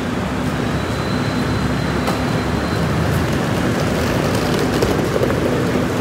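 Steady street traffic noise, with the low hum of vehicle engines running.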